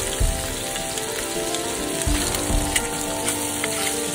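Octopus tentacles sizzling as they fry in a pan. Background music with long held notes and occasional low thumps plays alongside.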